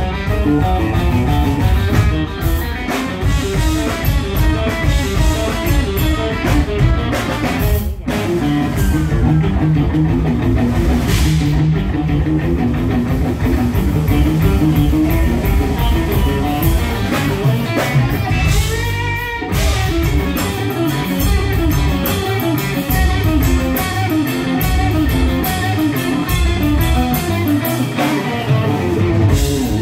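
Live rock band playing loud, with electric guitar, electric bass and drums. The band drops out for a moment about eight seconds in, and again near nineteen seconds, where a wavering, sliding guitar sound fills the gap.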